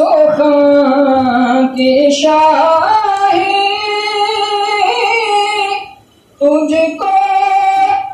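A man singing an Urdu naat unaccompanied in a high voice, drawing out long held notes, with a short pause for breath about six seconds in.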